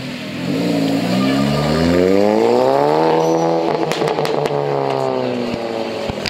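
A car engine revving as the car pulls away, its pitch climbing for about two and a half seconds, then holding and slowly falling. A few sharp cracks come from the exhaust about four seconds in.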